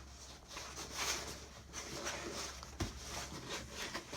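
Cardboard box and packaging being handled and opened: irregular scratchy rustling and scraping, with a single knock about three seconds in.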